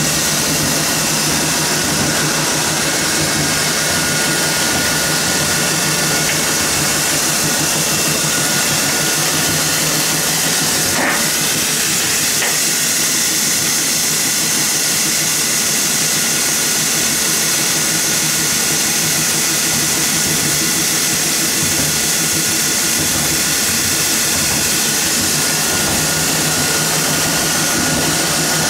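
Animal-feed extruder running: a steady, loud hiss of venting steam over the machine's running hum, with a few faint steady tones and a brief click about eleven seconds in.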